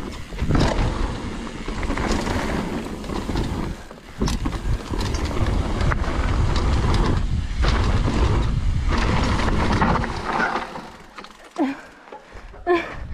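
Mountain bike descending a rough dirt trail: wind rumbling on the camera's microphone, with tyres on dirt and the bike's frame and parts rattling and knocking over bumps. It quietens near the end.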